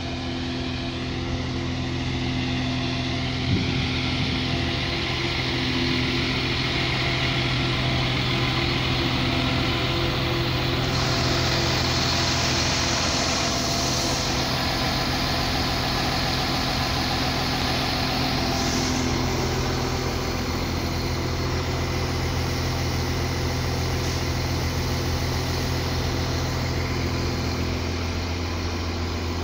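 CAF-built NI Railways Class 4000 diesel multiple unit standing and idling, its underfloor diesel engines giving a steady low hum. A single sharp click comes about three and a half seconds in, and a hiss grows louder for several seconds midway.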